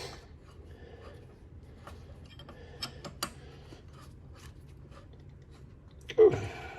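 Faint clicks, taps and light rubbing of metal parts and hand tools being handled, with a few sharper clicks about three seconds in and a brief louder sound near the end.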